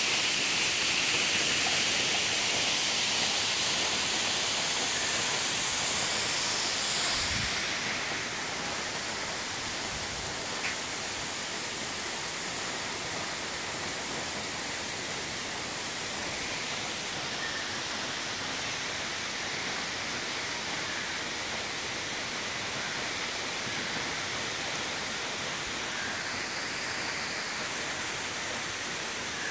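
Steady rush of falling water from a waterfall, an even hiss with no pitch, a little louder for the first several seconds and easing slightly about eight seconds in.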